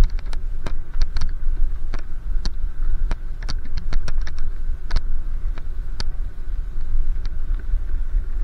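Rumble of wind and road noise on a moving camera's microphone, with many irregular sharp clicks and rattles and a faint steady high hum.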